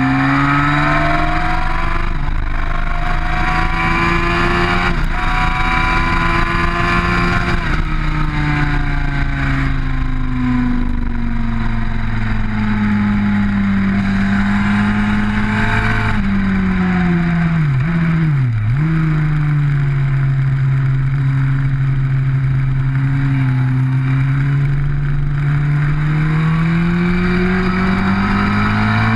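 Sport motorcycle engine at high revs, heard onboard at track speed with rushing wind. Its note climbs and dips as it shifts up through the gears, drops sharply twice a little past halfway, then climbs steadily again.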